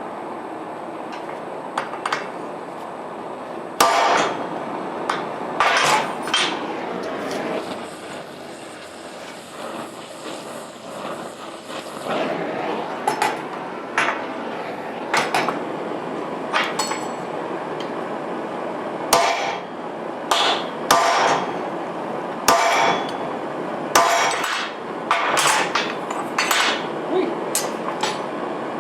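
Hammer blows on steel: about twenty irregular strikes, some in quick pairs, each with a short metallic ring, over a steady background noise.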